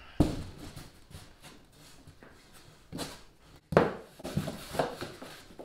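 Handling noise from a plywood boat-side panel with a wooden chine log screwed along its edge as it is held up and turned: a sharp knock just after the start, a brushing sound about three seconds in, then the loudest knock, with light knocking and rubbing between.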